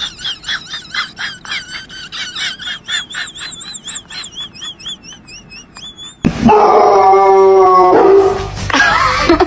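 A dog giving a rapid run of short, high, wavering yips, about four or five a second. About six seconds in, a much louder, long drawn-out call cuts in.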